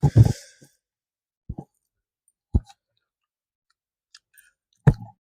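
Close-up eating sounds of a person taking a big bite: a short crackly burst at the start, then a few separate wet mouth clicks and smacks while chewing.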